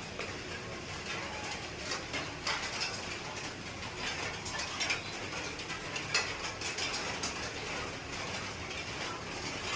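Irregular light clicks and taps from puja items being handled on a puja plate, over a steady background hiss.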